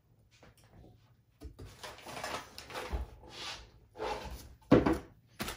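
Handling of a cardboard box and its foam packing: rustling and scraping with short knocks, and a sharp knock near the end.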